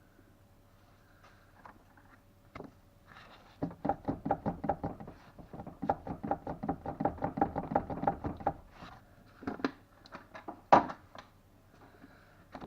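Rapid, even clunking, about four or five knocks a second, from a worn part on a ZAZ Tavria being rocked back and forth by hand, then a few separate knocks with the loudest near the end. The clunks are the sign of slight play in the part.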